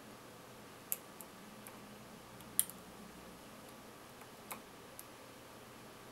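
About half a dozen faint, scattered metallic clicks of a pick and tension wrench working the pins of a Millenco Magnum dimple cylinder lock, the sharpest about two and a half seconds in.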